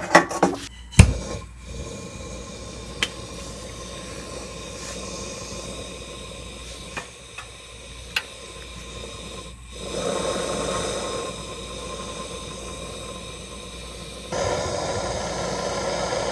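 Handheld gas torch hissing steadily as it heats a rusted exhaust flange to free a seized stud, after a few metal clinks of the extractor socket being set in the first second. The flame gets louder about ten seconds in and again near the end.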